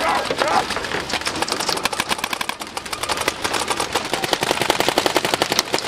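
Paintball markers firing rapid strings of pops, many shots a second, with several guns going at once so that the shots run almost without a break.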